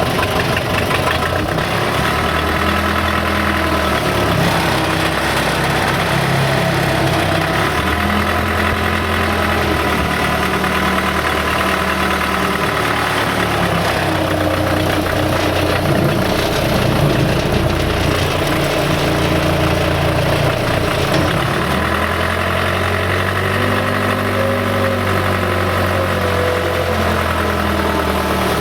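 Case 580C backhoe's four-cylinder diesel engine running steadily while the machine drives along in second gear. The engine note rises and falls slightly every few seconds.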